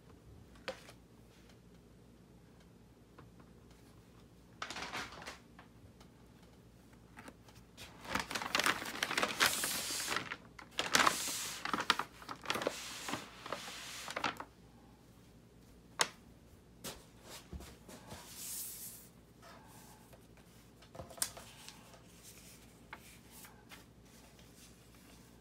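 Large kraft-paper shopping bag rustling and crinkling as hands handle it, in bursts, loudest and longest in the middle, with a sharp tick a little later.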